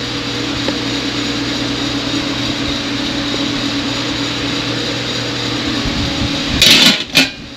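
A steady machine hum with a fan-like hiss. Near the end come a few sharp metallic clanks, like stainless steel food-warmer lids and pans being handled.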